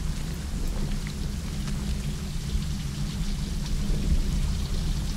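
Heavy rain falling steadily, with a deep, continuous rumble of thunder underneath and scattered drops ticking.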